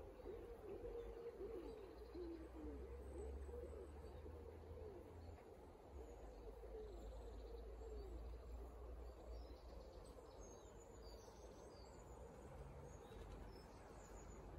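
Faint birdsong: a low call repeated over and over through the first half, with a few faint high chirps later, over a low rumble.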